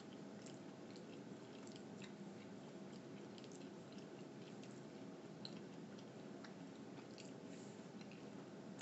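Faint close-up chewing and small wet mouth clicks as a person eats soft scrambled eggs, over a low steady hum.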